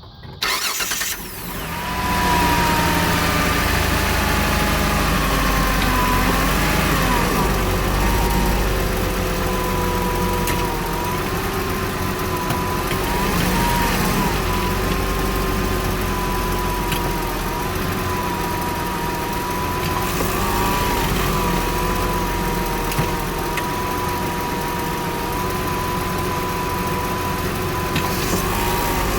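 Hyundai XG350's 3.5-litre V6 starting right at the beginning, then idling steadily with a whining tone that wavers slightly now and then.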